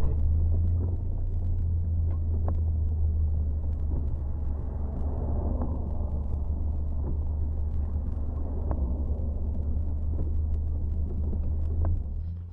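Steady low engine and tyre rumble of a car driving on a wet road, heard from inside the cabin, with faint ticks about every three seconds. The rumble drops away just before the end.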